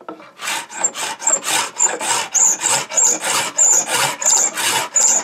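Scratch stock's steel cutter scraping along the edge of a wooden board, pushed back and forth in quick short strokes, about three a second, each with a brief high squeak, as it cuts a bead profile into the edge.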